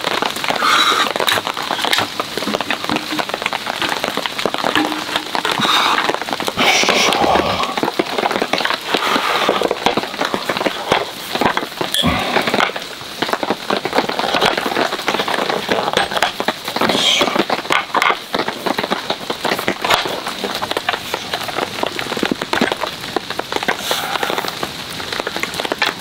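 Rain pattering steadily on a tarp overhead, with scattered light wooden knocks and clatter from folding camp tables being set up.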